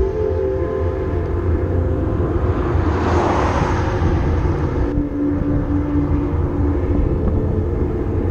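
Wind rushing over the microphone of a camera riding on a road bike, with a steady low rumble of road noise and a louder rushing swell about three seconds in.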